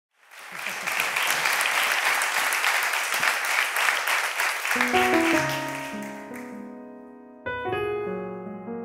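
Audience applause that fades away, overlapped about five seconds in by an electric piano starting to play soft sustained chords. A second chord is struck a couple of seconds later and rings down.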